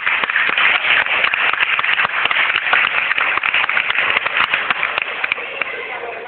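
Crowd applauding, many hand claps over a dense wash of noise, dying down near the end.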